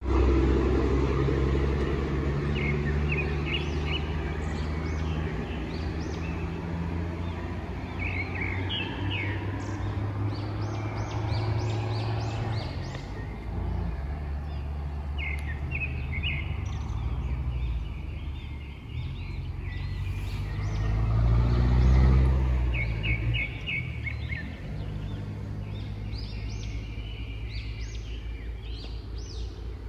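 Small birds chirping in short quick runs of notes every several seconds, over a steady low rumble of road traffic that swells as a vehicle passes about 22 seconds in.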